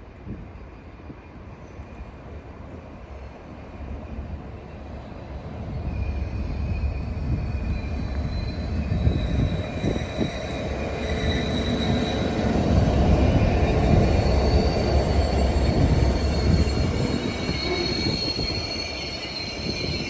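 A train passing on the main line: its rumble builds over several seconds, is loudest in the middle and eases toward the end. High-pitched wheel squeal rises over it and is strongest near the end.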